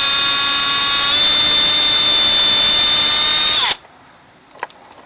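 Power drill spinning a thin bit at a steady high whine, drilling out a small-engine carburetor's idle jet. The pitch shifts slightly about a second in. The drill winds down and stops a little past halfway, followed by a faint click.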